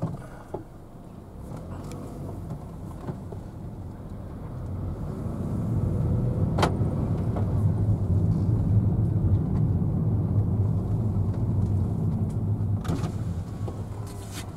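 Car running at low speed across a parking lot, heard from inside the cabin: a low engine and tyre rumble that builds about a third of the way in and eases off near the end. A single sharp click comes about halfway through.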